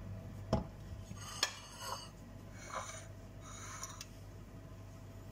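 Kitchenware being handled: a dull knock about half a second in, then a sharp click and a few light clinks and scrapes, as a pan of oil sits on the glass hob and a plate of skewered sausages is moved beside it.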